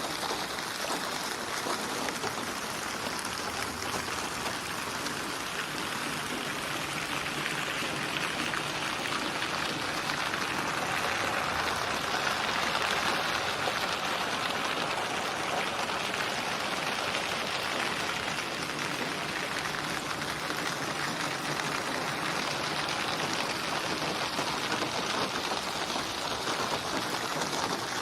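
Steady rain falling, an even hiss of drops that swells a little around the middle.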